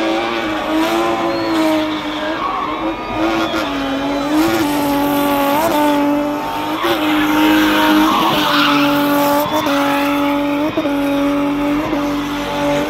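BMW M20 straight-six engine held at high revs in a spinning car, its note dipping briefly and snapping back about once a second, over screeching tyres that grow loudest past the middle.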